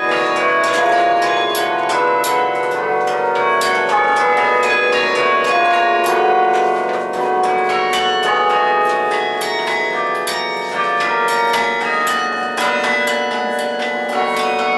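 Carillon bells played from the baton keyboard: a quick run of struck bell notes, several a second, each ringing on so that the notes overlap.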